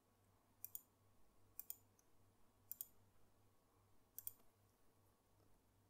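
Faint computer mouse clicks: four quick pairs of sharp clicks spread over a few seconds.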